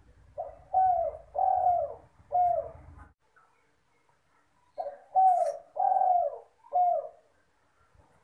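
Spotted dove (derkuku, tekukur) cooing: two phrases about four seconds apart, each a short lead-in note followed by three longer coos that bend down in pitch at their ends.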